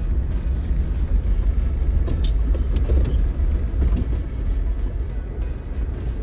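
Off-road vehicle driving slowly over a rutted dirt trail: a steady low rumble of engine and tyres, with scattered knocks and rattles.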